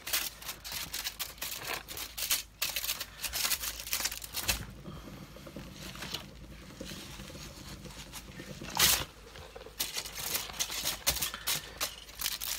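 Aluminium foil and disposable plastic gloves crinkling and rustling as gloved hands handle and tilt a foil-covered painting board on a turntable, with scattered small clicks and one louder click about two-thirds of the way through.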